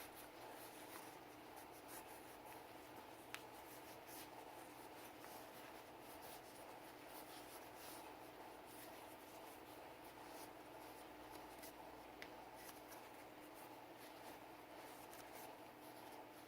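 Faint scratching and rubbing with scattered small clicks and one sharper click about three seconds in, over a steady hiss: a Sig Sauer P320 pistol being cleaned by hand.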